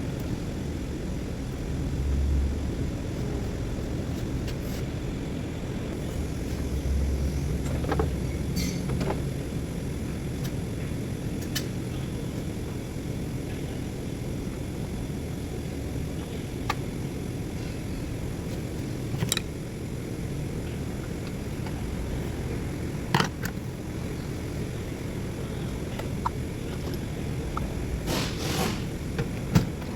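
Scattered clicks and metallic taps of hand tools and parts being handled while components are taken off a car engine, over a steady low rumble. The taps come closer together near the end.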